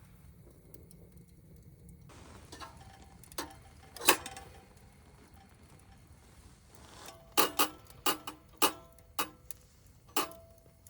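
Sharp, ringing knocks against the metal fire pit: two single knocks, then a quick run of about seven more near the end.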